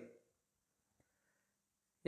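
Near silence: the end of a man's spoken word fades out at the start, then room tone.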